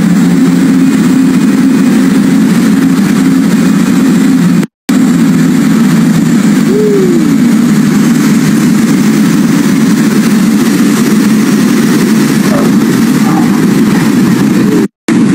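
Steady loud drone of a small propeller plane's engines, heard from inside the cabin. It cuts out for a split second twice.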